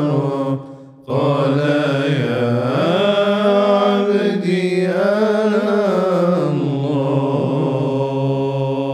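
Men's voices singing an unaccompanied Arabic devotional nasheed. After a short breath about a second in, they draw out one long melismatic line, the pitch slowly rising and falling, as the closing phrase of the song.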